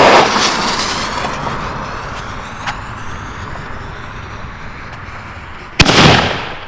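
A firework fuse lit with a torch hisses, fading over a few seconds. Near the end, one sharp bang as the lift charge fires a 4-inch salute shell out of its mortar tube.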